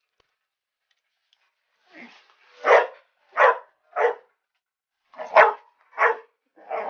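A puppy barking, about six short barks in two quick runs that start about two seconds in.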